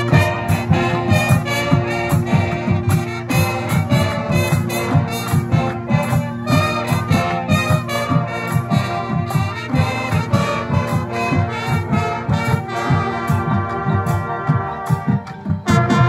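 High school marching band playing: a full brass section (trumpets, mellophones, trombones, sousaphones) over a drumline and front-ensemble percussion, with rapid drum hits driving a busy rhythm. At the very end the drum hits stop and the brass holds a chord.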